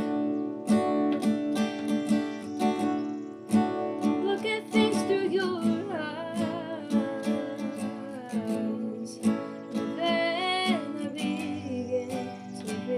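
Steel-string acoustic guitar strummed steadily while a woman sings long, gliding notes over it.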